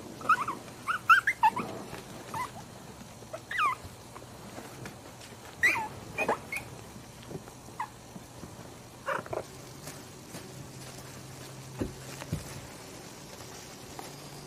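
Young puppies whimpering with short, high-pitched squeaks, many in quick succession during the first seven seconds and a few more around nine seconds in, over a faint steady hum.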